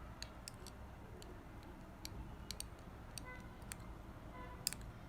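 A spoon clicking and tapping against a small dish while stirring a honey, ginger and vinegar mixture, in light irregular clicks.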